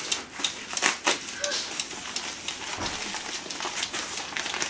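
Gift wrapping crinkling and rustling in irregular bursts of crackles as a present is unwrapped by hand.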